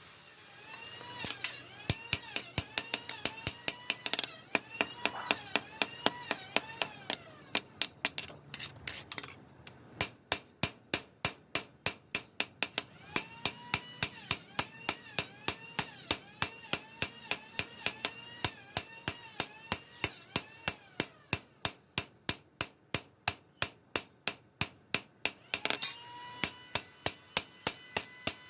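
Steady hammering on steel, sharp blows at about three to four a second, with a brief pause about nine seconds in.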